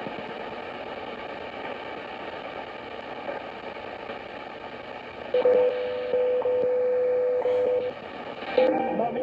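Sony ICF-2010 shortwave receiver in AM being tuned up through the 60-metre band: hiss and static between stations. A louder steady tone comes in a little past halfway and lasts about two and a half seconds, then music starts to come through near the end.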